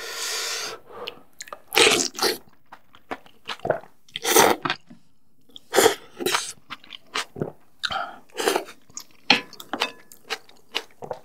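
Close-miked eating of noodle soup: about half a dozen loud, half-second slurps of noodles and broth, with wet chewing and many short clicks of chopsticks and a spoon against a ceramic bowl.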